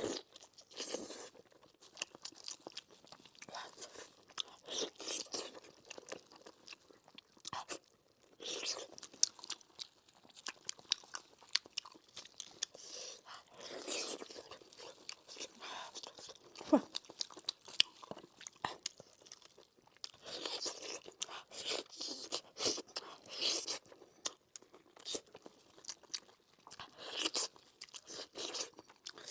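Close-miked biting and chewing of fatty, tendon-rich pork elbow (pork knuckle): an irregular run of mouth clicks and smacks, several a second.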